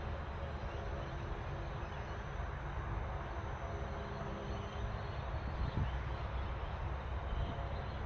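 Steady outdoor background noise with a faint low hum and no distinct events.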